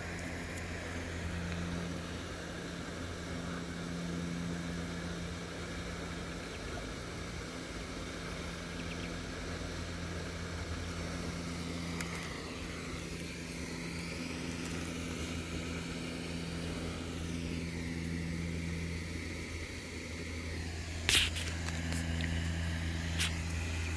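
A steady low mechanical hum, with two sharp clicks near the end.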